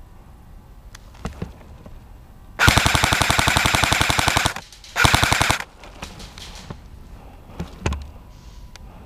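Airsoft electric rifle firing on full auto: a burst of about two seconds of rapid, evenly spaced shots, then a shorter burst about half a second later, with a few fainter single cracks before and after.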